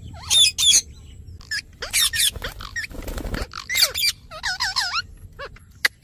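Caged parakeets squawking and chattering in short, sliding calls, with a quick run of repeated wavering notes about four and a half seconds in. A brief rustle comes midway.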